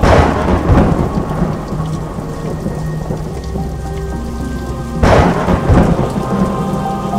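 Rain falling steadily, with two claps of thunder, one right at the start and one about five seconds in, each rumbling away over a second or so.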